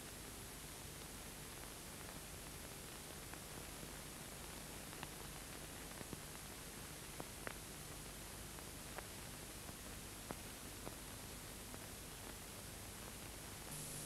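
Steady hiss of an old film soundtrack with faint scattered clicks and pops. Just before the end the hiss turns brighter and a low hum sets in.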